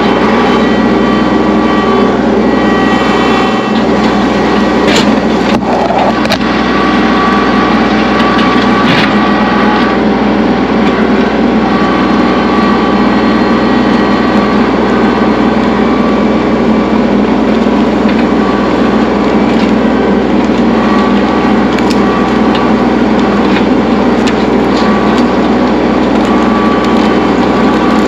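Kubota L3301 tractor's three-cylinder diesel engine running steadily and loud, with a few sharp cracks of brush and wood breaking.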